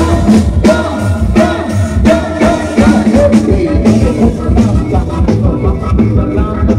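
Upbeat music with a steady drum beat, a heavy bass line and a melody line.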